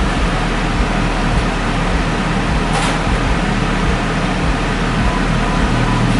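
Idling car heard from inside the cabin: a steady low engine hum under an even hiss, with a brief swell of noise about three seconds in.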